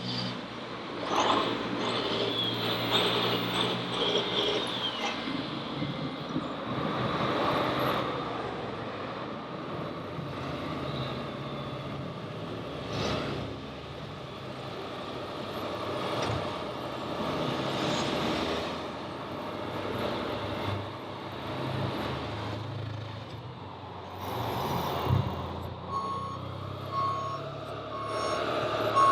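Radio-controlled model trucks and construction machines at work, their motors whining and rising and falling in pitch, with occasional clatters. Near the end a reversing beeper starts, beeping about twice a second.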